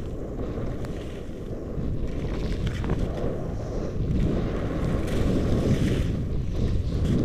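Wind buffeting the microphone of a camera worn by a skier moving downhill: a steady, loud low rushing and flutter.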